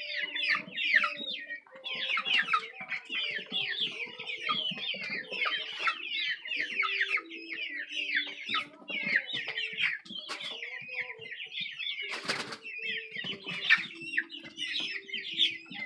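A flock of young chickens peeping and cheeping without a break, many short, high calls that slide downward. There is one brief burst of noise about twelve seconds in.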